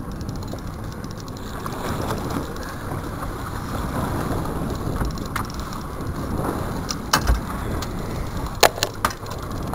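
Water splashing and sloshing at a boat's side as a hooked striped bass thrashes at the surface, under a steady rumble of wind and boat noise, with a few sharp knocks near the end.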